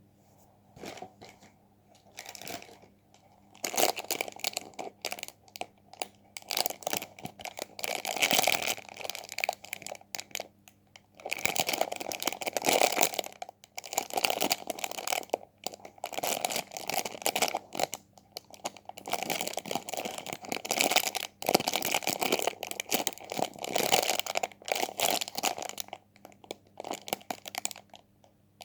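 Squishy toy being squeezed and handled: crinkly crunching in dense runs of rapid crackles, coming in irregular bouts with short pauses.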